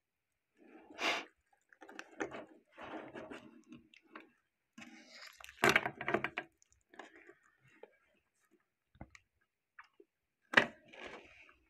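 A wristwatch on a stainless steel link bracelet being picked up, turned over and handled, the metal links clinking and rustling with a few sharp clicks, the loudest about ten and a half seconds in.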